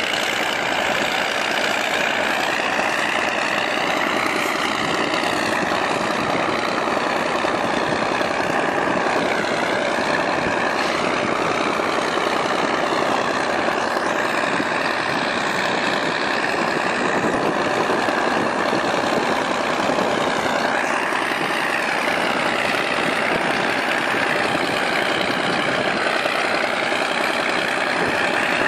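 Truck-mounted rotary snow blower at work: the truck's engine and the spinning blower run together in a steady drone. Its pitch sags and recovers a few times.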